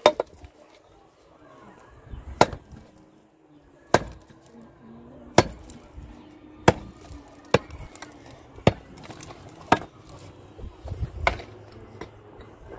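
A long-handled, metal-headed tool striking stone and mortar at the base of a wall, breaking it out: about nine sharp strikes, one every second or so at an uneven pace.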